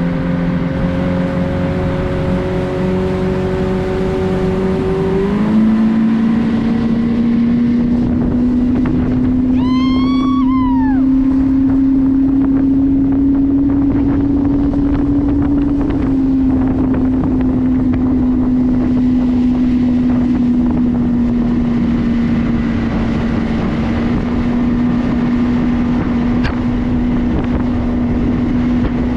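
Motorboat engine running on the water, its pitch stepping up about five seconds in as it speeds up, then holding nearly steady. A short high call rises and falls about ten seconds in.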